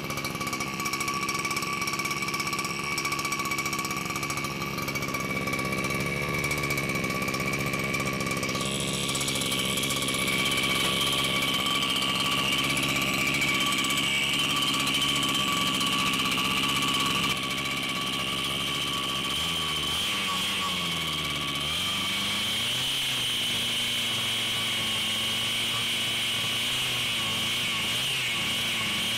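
ベビット T40B two-stroke water-cooled gasoline engine for a radio-controlled boat, running on a test stand after repair. It runs steadily, picks up speed about nine seconds in, then drops back and sags briefly about two-thirds of the way through before settling again.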